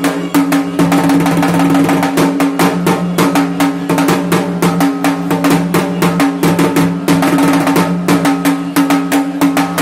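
Dhak, the large Bengali barrel drum, beaten fast with two thin sticks in a traditional rhythm, the strokes running together into rolls at times. A steady low ringing tone from the drumhead sustains beneath the strokes.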